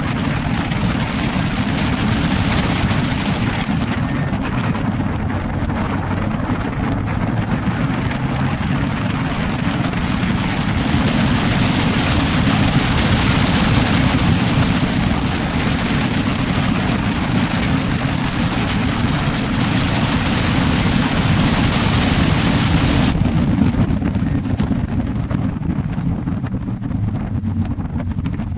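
Toyota Celica GT-Four ST165's turbocharged four-cylinder engine running hard at circuit speed, heard through heavy wind rush on an outside-mounted microphone. The high rushing noise drops away sharply about four-fifths of the way through, leaving the engine's low drone.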